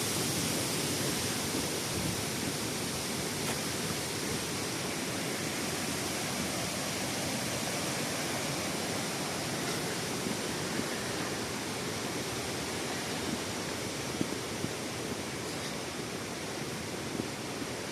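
A waterfall's falling water rushing steadily, an even, unbroken hiss and rumble, growing slightly fainter toward the end.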